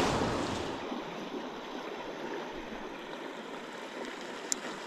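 River water running steadily, a hiss with no distinct events, with a louder gust of wind noise on the microphone fading away in the first second. One short faint click near the end.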